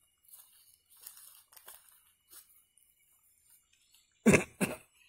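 A person coughing twice in quick succession, loud and short, about four seconds in, after faint rustling.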